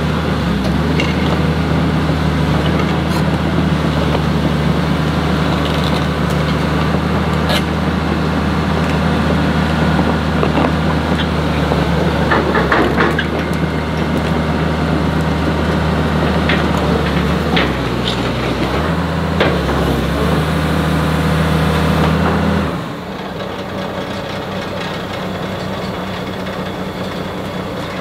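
Heavy diesel engine running steadily, with a few metallic clanks. About 23 seconds in it drops to a lower, quieter idle.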